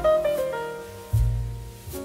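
Background piano music: a falling melody over deep bass notes, with a new bass note struck about a second in.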